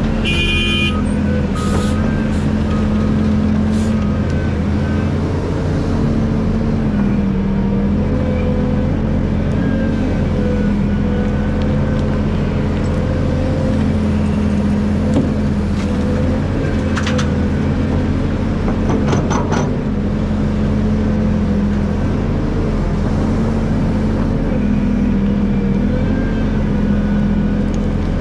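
Hydraulic excavator's diesel engine running steadily, its pitch dipping and rising slightly as the load changes, with a few short metallic clanks.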